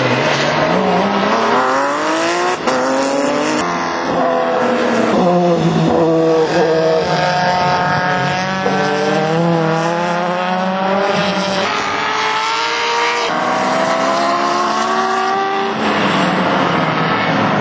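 Several race car engines at full revs passing on a circuit, overlapping, their pitch climbing steeply and dropping again and again as they accelerate and change gear.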